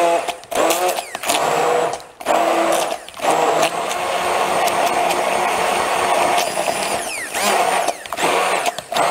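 Hand-held immersion blender running in a plastic jug, puréeing garlic and ginger with sunflower oil into a paste. The motor cuts out briefly a few times in the first three seconds, then runs steadily for about five seconds with its pitch rising and falling as it works through the mix.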